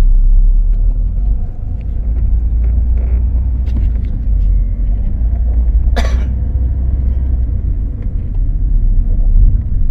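Steady low rumble of a car on the move, with a short, sharp sound about six seconds in.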